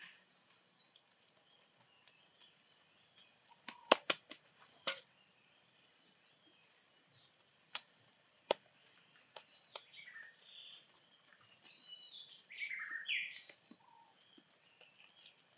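Wet mud being pressed and worked by hand over a stick frame, with a few sharp clicks. A bird calls several times near the end.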